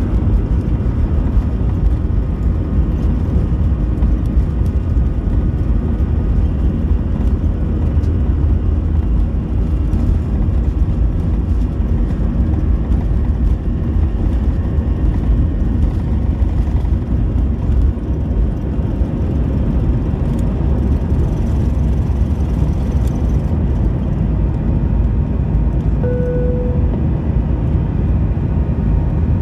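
Steady low rumble of an Airbus A320's engines and airflow heard inside the passenger cabin. A single short tone sounds once near the end.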